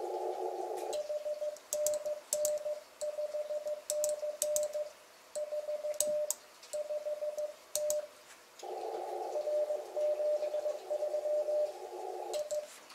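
Icom IC-7300 transceiver in CW mode with Morse code keyed as a single steady tone. From about a second in, the sending sidetone plays alone with sharp clicks along with the keying. Near the end the band hiss of the narrow receive filter comes back under another station's Morse reply.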